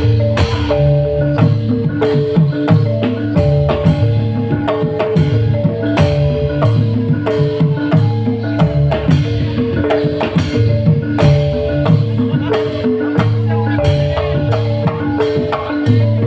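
Live band music with tuned mallet percussion, drums and a repeating bass line, played at a steady beat.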